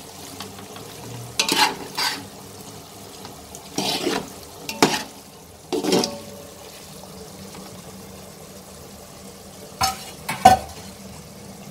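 A steel spoon stirring and scraping paneer cubes and onion-tomato masala around a metal pot in about five short strokes, over a faint frying sizzle. Two sharp knocks come near the end.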